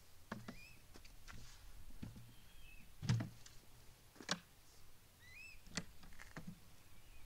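Aluminium motorcycle top box being set onto its rack mounting plate and latched by hand: a series of separate knocks and clicks, the loudest about three seconds in.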